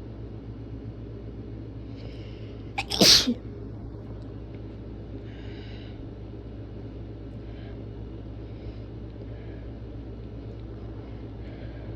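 A person sneezes once, strongly, about three seconds in: a short catch of breath, then a loud burst over in about half a second. Faint breathing sounds come and go around it.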